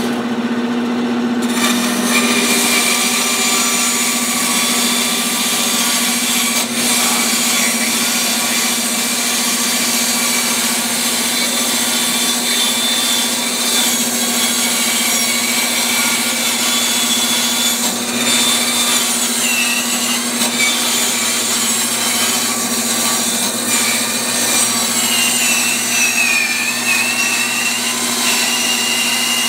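Bandsaw running steadily, its blade cutting through a thick chestnut slab: a constant motor hum under the cutting noise, with a thin high whine that wavers in pitch, more noticeable in the second half.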